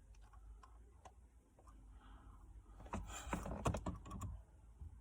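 Small clicking and rattling of gear-knob parts being worked by hand on the gear stick: a few faint ticks at first, then a quick flurry of louder clicks about three seconds in.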